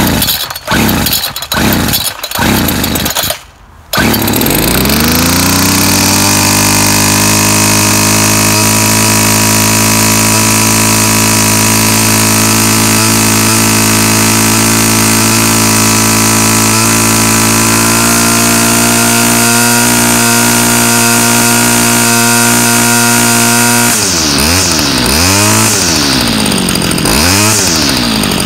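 Homelite Bandit SX-135 25cc two-stroke string trimmer being pull-started on half choke. It sputters through a few pulls, catches about four seconds in and settles into a steady run. Near the end it is revved up and down several times.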